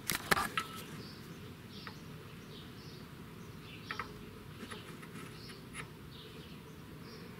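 A few light metal clicks and knocks as a toothed sprocket is slid onto the engine's crankshaft nose by hand, over a faint steady background with small repeating high chirps.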